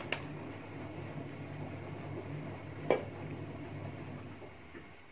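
Brass gas-welding-torch parts handled and set against each other: a light click right at the start and a sharper metallic clink about three seconds in, over a steady low hum.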